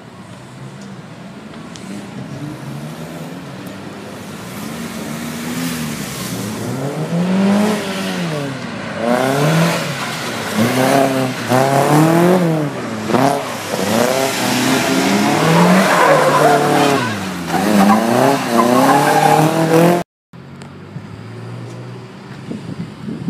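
A car engine revved again and again, its pitch rising and falling about once a second and growing louder. It cuts off suddenly near the end and gives way to a quieter engine running.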